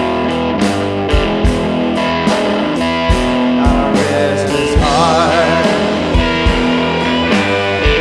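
Background rock-blues music with electric guitar, a steady drum beat and bent guitar notes about five seconds in.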